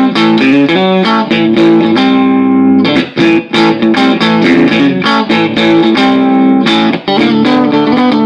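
Electric guitar played through a tube amp, picking single notes and chords with a few held chords ringing out, checking the amp's clean tone.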